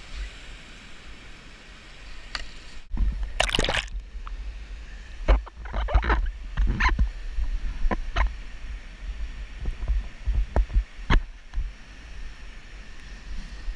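Whitewater rapids rushing around a kayak, with irregular splashes from paddle strokes and water breaking over the boat.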